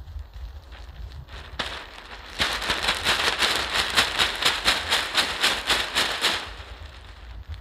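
Thin plastic tarp, a cut-up mattress cover, crinkling loudly as a hand pushes and shakes it from underneath, about four rustles a second for some four seconds, starting about two seconds in. Wind buffets the microphone.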